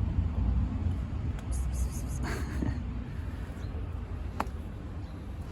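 Low steady rumble of vehicle traffic, easing off slightly. A short voice-like call comes about two seconds in, and a single sharp click about four seconds in.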